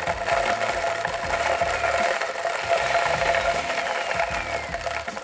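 Countertop blender running on pulse, its blades grinding dry stale-bread cubes into breadcrumbs with a steady motor whine. It cuts off near the end.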